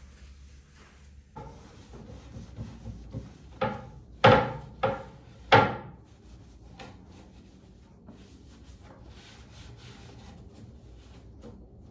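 Hard knocks and clatter of objects handled during bathroom cleaning: lighter knocks starting about a second and a half in, then four loud sharp knocks within about two seconds, each with a short ring. After them come only faint clicks and a little rubbing.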